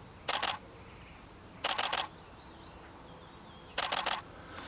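DSLR shutter firing in three quick high-speed bursts of a few clicks each, continuous shooting to catch one sharp macro frame.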